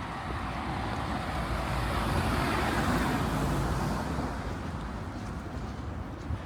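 A car passing by on the street: its engine and tyre noise swells to a peak about halfway through and then fades away.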